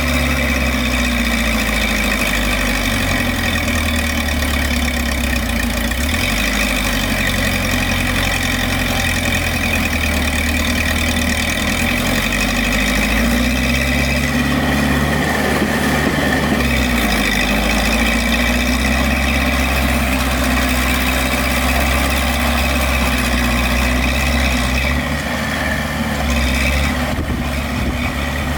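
Heavy diesel engine of an earthmoving machine such as a dump truck or bulldozer running steadily near idle, its pitch easing up and down slightly and dipping briefly near the end.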